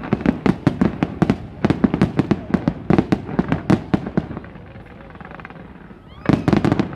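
Fireworks display: a rapid run of bangs and crackles from shells bursting, easing off about four seconds in, then another quick volley of bangs near the end.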